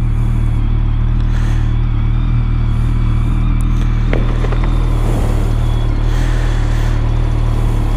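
BMW K1200R motorcycle's inline-four engine idling steadily.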